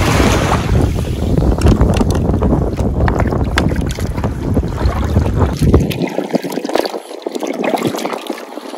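Wind buffeting the microphone over small waves washing onto the sand. About six seconds in, the wind rumble drops away suddenly, leaving light splashing and trickling as hands scoop and pour shallow seawater.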